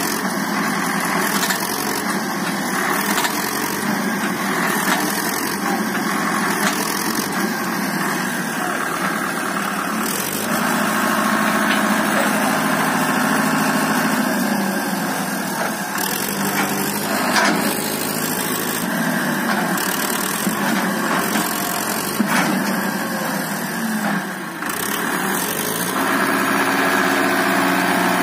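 Powertrac Euro 60 tractor's diesel engine running hard under load as it drags a chained tree trunk through sand. The engine note rises about a third of the way in, eases off, then dips briefly near the end before picking up again.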